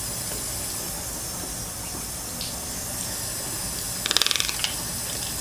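Kitchen tap running steadily into a steel sink. About four seconds in, a toucan gives a quick rattle of rapid clicks lasting about half a second.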